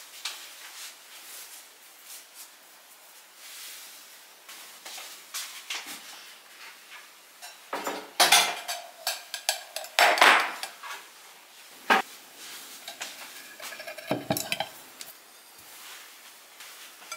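Kitchen handling sounds: dishes and utensils knocking and clinking at irregular moments, with a few louder clatters about eight and ten seconds in.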